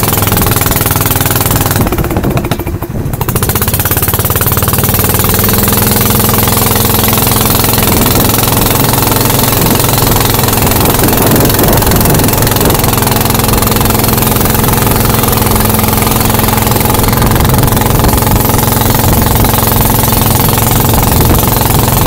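Small wooden boat's engine running steadily at cruising speed, a loud rattling drone with the rush of water and wind over it. The sound briefly drops away about two seconds in, then carries on.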